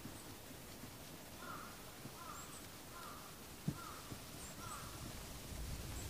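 A crow cawing five times in a steady series, faint against a quiet outdoor background, with thin high chirps of small birds. A single sharp tap about two thirds of the way through.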